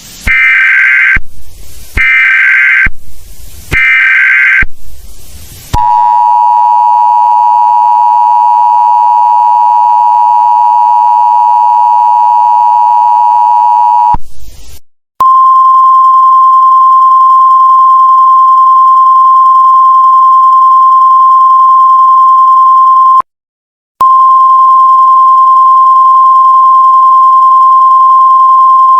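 Emergency Alert System tones: three short screeching digital header bursts, then a steady attention tone with many overtones lasting about eight seconds. After a brief break, a single clean high beep tone holds steady, cuts out for under a second near the end, and resumes.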